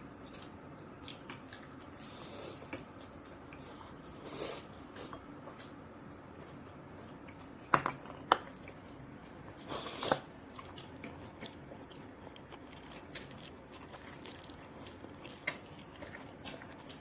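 Forks clinking and scraping on plates and chewing while people eat pasta, with scattered sharp clicks, two of them loudest close together about eight seconds in.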